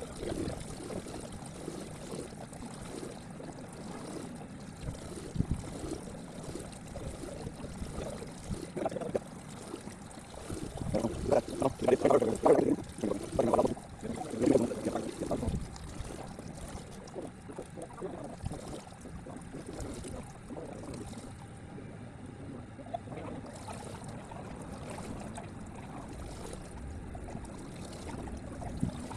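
Water pouring and trickling as the flooded boat is drained, under a steady noisy background, with a louder stretch of sound between about eleven and fifteen seconds in.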